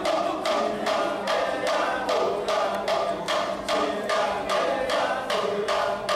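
Kecak chorus of men chanting the rhythmic "cak" syllables, about four sharp accents a second, over a continuous held sung tone.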